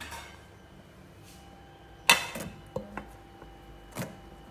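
Cookware clattering as a pot is covered with its lid and weighed down: a sharp clank about two seconds in, a few light knocks after it, and another knock near the end.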